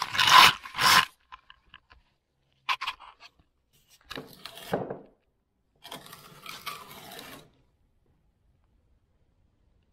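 Cloth rubbing over the microphone as the camera is handled and set down, then a few light clicks and two spells of scraping, about a second each; the last two seconds or so are nearly silent.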